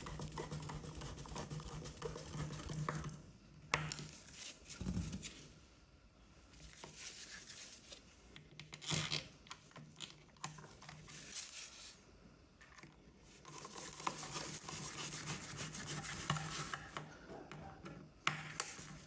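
Faint rubbing and scraping with a few sharp clicks as a hand screwdriver turns the faceplate screws of a wall socket into the back box, tightened gently so the faceplate does not crack.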